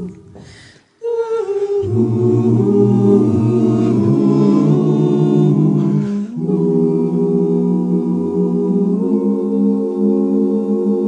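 Vocal ensemble singing a cappella, wordless sustained close-harmony chords with several voices moving between held notes. The sound briefly drops out about half a second in, and there is a short break near six seconds.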